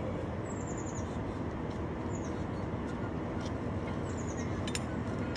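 A steady low rumble of distant traffic or engines, with a bird giving short, high, descending chirping runs about every two seconds and a couple of sharp clicks near the end.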